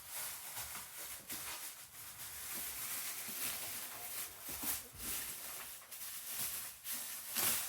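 Packaging rustling and scraping in irregular bursts as a backpack vacuum is pulled out of its box.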